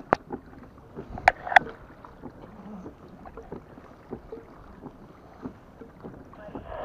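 Pedal-driven kayak gliding through calm water, with a soft wash of water along the hull. A few sharp clicks and knocks come in the first two seconds, and a faint steady tone starts near the end.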